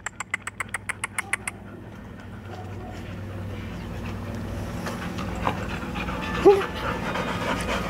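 Dog panting fast and rhythmically, about eight breaths a second, for the first second and a half, then softer breathing and movement. About six and a half seconds in there is one short, high dog whimper.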